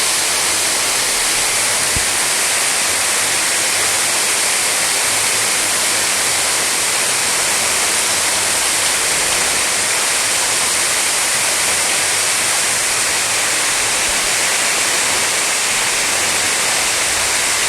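Waterfall pouring into a pool, a steady, loud rush of falling water.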